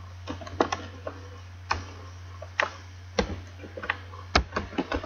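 Computer keyboard being typed on: scattered, uneven key clicks, about fifteen in all, over a low steady hum.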